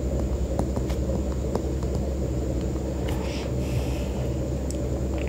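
A steady low background rumble, with faint light ticks of a stylus writing on a tablet screen.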